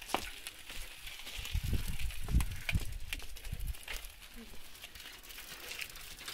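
Bicycle rolling slowly over a dirt lane, with scattered clicks and crackles. A low rumble runs for a couple of seconds in the middle.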